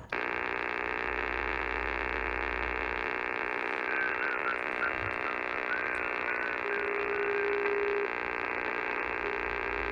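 Icom IC-7300 transceiver receiving on 20-meter sideband: a steady hiss of band noise through its speaker, limited to the voice passband, with a faint garbled signal in the middle and a steady tone of about a second and a half a little past two-thirds through. The noise is the electrical interference that the operator puts down to the high-tension power lines running through the park.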